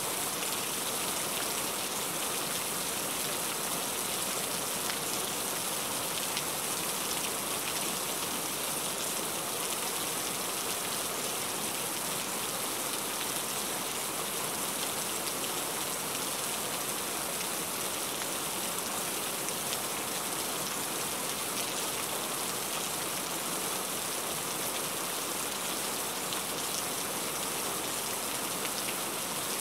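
Heavy rain falling steadily on the car, heard from inside the cabin: an even, dense hiss of drops striking the windscreen and body.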